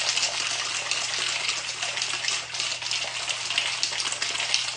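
Ice rattling in a metal cocktail shaker, shaken steadily to mix gin, triple sec, lime and rhubarb syrup: a dense, continuous clatter of many small clicks.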